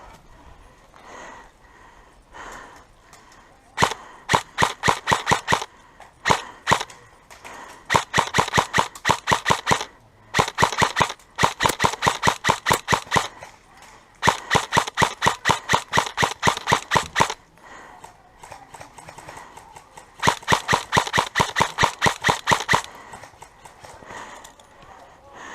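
Airsoft gun firing in about six strings of rapid, evenly spaced shots, each string lasting one to three seconds, with short pauses between.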